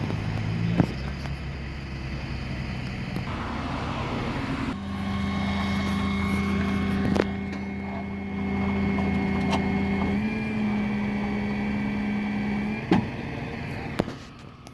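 Motor vehicle engine running steadily, its hum stepping up in pitch about five seconds in and again about ten seconds in, then dropping away near the end. A few sharp clicks are heard along the way.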